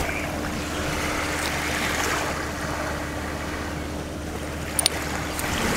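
Small waves washing on a coral beach, the wash swelling and fading twice, with a steady low hum underneath and two short clicks near the end.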